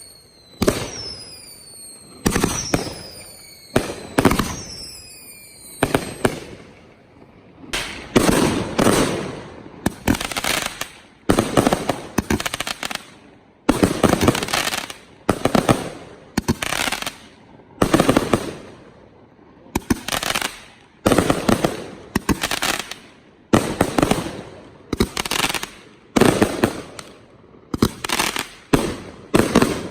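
Professional aerial fireworks going off in steady succession, a sharp bang about every second or so. The first few come with high whistles falling in pitch; from about eight seconds in, each bang trails off over about a second before the next.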